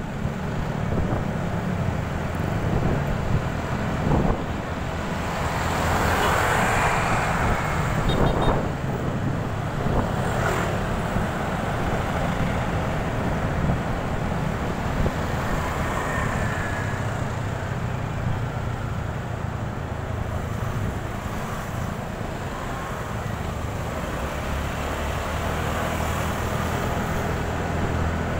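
Motorcycle riding in city traffic: a steady low engine drone under road and traffic noise, growing louder and brighter for a few seconds about six seconds in.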